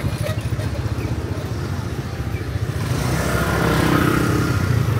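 Motorbike engines running close by in street traffic, with a steady low throb that grows louder about three seconds in as one comes nearer.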